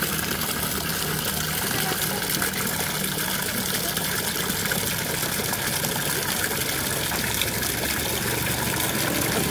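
Steady rushing and bubbling of water churning in an aerated live-fish tank, with a steady low hum underneath.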